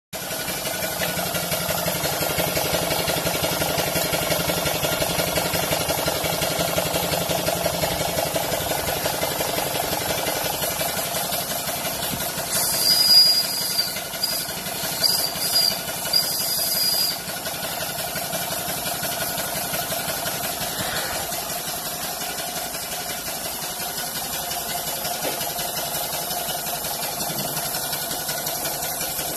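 Model live-steam traction engine running on steam for the first time, its engine ticking over with a fast, even beat. About midway, a high steam hiss with a whistling note sounds in four short blasts.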